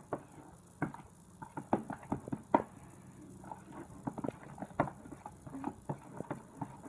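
A spoon stirring sticky fluffy slime (white glue and shaving foam) in a bowl, giving irregular wet squelches and clicks a few times a second as the borax activator drops thicken the mix.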